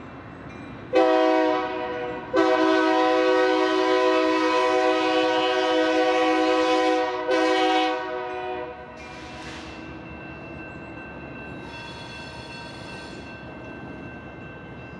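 A diesel locomotive's multi-note air horn sounds three blasts: a short one about a second in, a long one of about five seconds, then a short one. After that comes the steady rumble of the approaching train.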